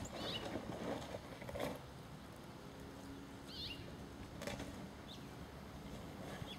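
A bird gives four short, high chirps a second or two apart, faint against a steady outdoor background, with a couple of soft knocks.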